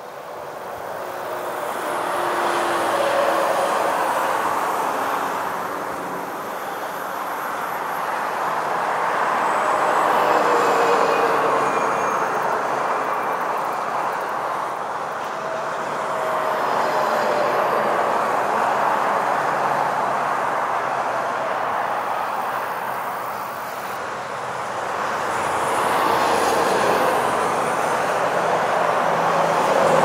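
Road traffic passing one vehicle after another, each swelling up and fading away over several seconds. A faint whine drops in pitch as each vehicle goes by.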